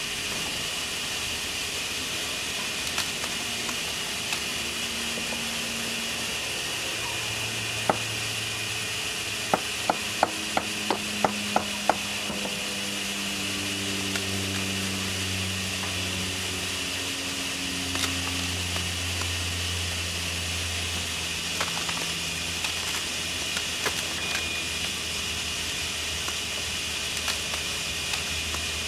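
Steel hand chisel prying and tapping at cracked cement plaster over a rusted metal armature. There is a quick run of about seven sharp taps around ten to twelve seconds in, and a few single taps elsewhere, over a steady hiss and a low hum.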